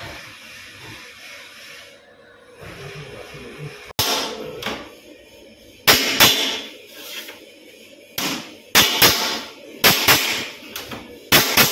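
Hammer striking a tack-welded aluminium strip to set it flush against an aluminium sheet: about a dozen sharp metallic blows at an uneven pace, each with a short ring, starting about four seconds in.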